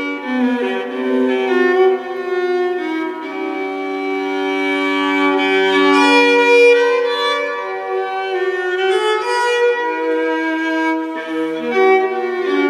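Background music: a slow melody on bowed strings, violin to the fore, with long held notes.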